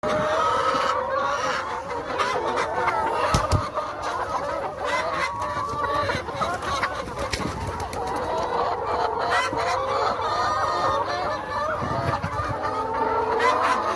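A flock of Lohmann Brown laying hens clucking continuously, many birds calling over one another, with scattered sharp clicks.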